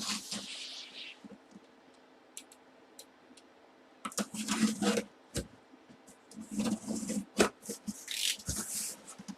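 Rustling and crinkling of packaging being handled and opened, with scattered clicks and taps, in three spells of a second or two each.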